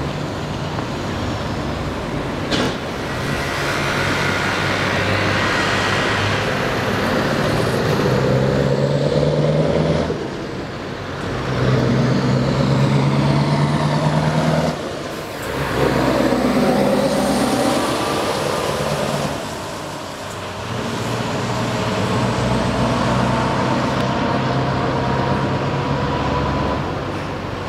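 Heavy lorry diesel engines pulling away and accelerating through the gears, the engine note dipping briefly at each shift about ten, fifteen and twenty seconds in. A Scania R 500 V8 on open pipes passes close by midway, its pitch rising then falling as it goes past.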